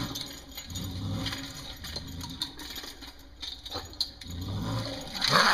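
A young raccoon held in a dog-proof trap inside a corrugated metal culvert growling low in short spells, with the trap's chain and metal rattling and scraping as a hand reaches in. A loud, rasping burst comes near the end.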